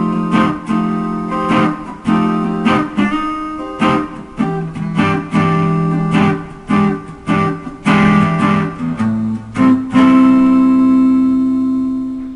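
Intro music: strummed guitar chords in a steady rhythm, ending on one long held chord that fades out.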